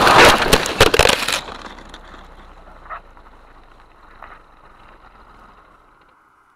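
Car crash: a loud crunching, clattering collision noise with many sharp knocks, cutting off about a second and a half in. After it only a faint hiss with two small knocks remains, fading out near the end.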